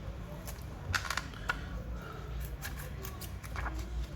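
Plastic card being worked along the seam of a Samsung Galaxy A20s's glued plastic back cover: a string of small, irregular clicks and crackles as the back panel comes away from the frame.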